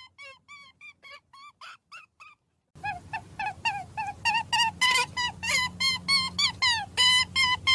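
A run of short, high, repeated animal calls, faint at first, then much louder from about three seconds in, coming about three to four a second over a low hum.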